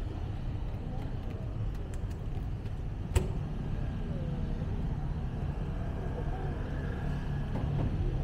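Steady low rumble of street traffic, with one sharp click about three seconds in.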